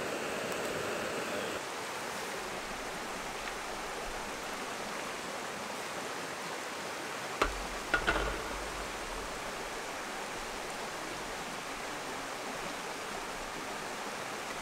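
Steady rushing of a creek. A Jetboil gas burner hisses for the first second and a half, then cuts off. About seven and a half and eight seconds in come two sharp clicks as the coffee press lid and plunger are handled.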